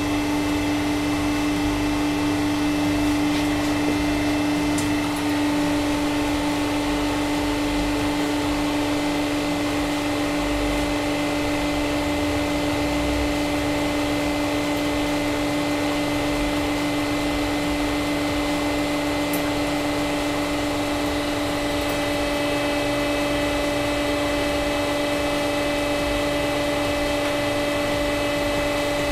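Hydraulic press pump unit running with a steady, even hum while pressure is slowly built up through the regulator valve, the platens not yet cracking the glass balls.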